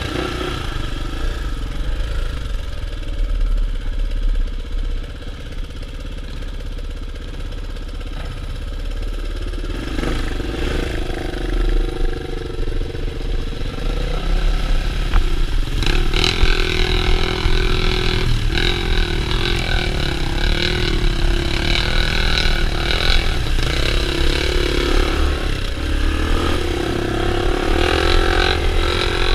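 Honda XR400R dirt bike's four-stroke single-cylinder engine running and revving on a trail ride, heard from on the bike. About halfway through, a broader rushing hiss joins it as the bikes splash through flooded trail.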